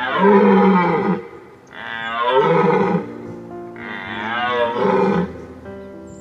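An animal calling three times, each call long with a wavering pitch, over background music.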